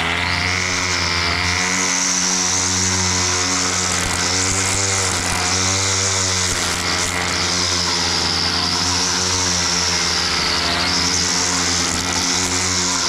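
Small petrol lawn mower engine running steadily under load, its pitch wavering slightly as it cuts grass.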